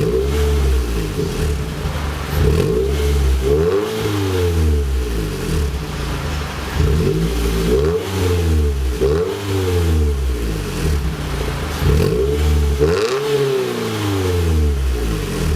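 Scion tC's four-cylinder engine revved several times through an aftermarket axle-back exhaust, the exhaust note rising and falling with each rev.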